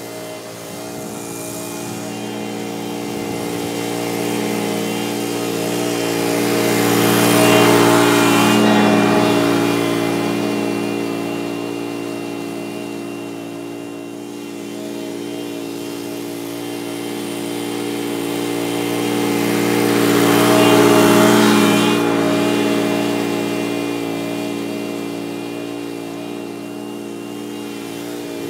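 Walk-behind lawn mower's small engine running at a steady speed while cutting grass. It grows louder twice as the mower passes nearby, about a quarter of the way in and again about three-quarters through, then fades as it moves off.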